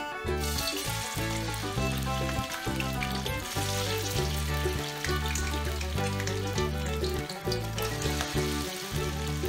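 Cubed luncheon meat sizzling in hot cooking oil in a wok as pieces are dropped in by hand, the sizzle starting about half a second in; background music plays underneath.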